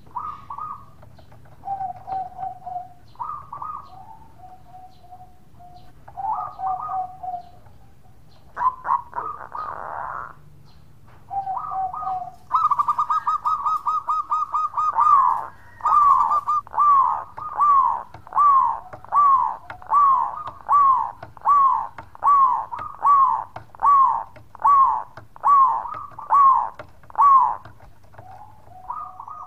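Zebra dove (perkutut) singing its cooing song: scattered soft coos at first, then about twelve seconds in a fast rattling run of coos on one pitch, followed by a steady series of about fifteen clear falling coo notes, a little over one a second.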